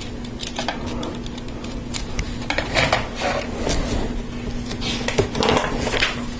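Plastic LEGO Technic parts clicking and clattering as they are handled, with the gear-packed gearbox assembly set down on a table; the clicks grow denser and louder about halfway through.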